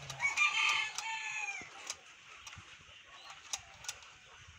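A rooster crowing once, a high call of about a second and a half that drops in pitch at its end. After it come a few sharp light clicks as metal parts of the opened engine gear case are handled.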